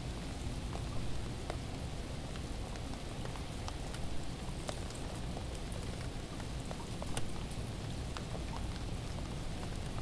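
Ice storm: freezing rain falling steadily, with many scattered small sharp ticks of ice among ice-coated branches.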